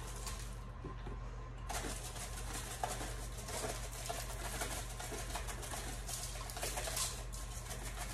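Seasoning being shaken from a spice bottle onto thin-sliced raw beef: a run of quick, small ticks and rattles that starts about two seconds in, over a low steady hum.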